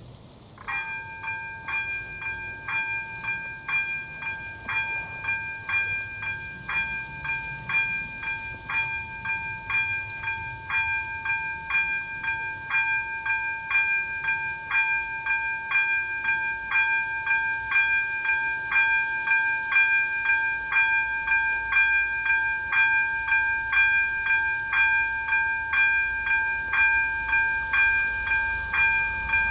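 Level crossing's electronic warning bell (AŽD ZV02) starting about a second in and ringing in even strokes about twice a second: the crossing has activated for an approaching train.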